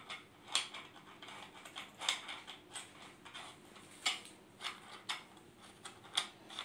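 Irregular light clicks and taps of a metal pressure-washer extension rod and its brass fittings being handled and fitted, with a few sharper clicks about two seconds apart.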